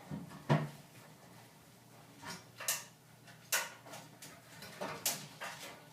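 Kitchen handling noise: about half a dozen sharp knocks and clicks at irregular spacing, as a frying pan is set on the stove.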